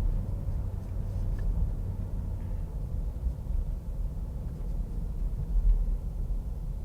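Road noise inside a moving car's cabin: a steady low rumble from knobby tyres rolling on pavement.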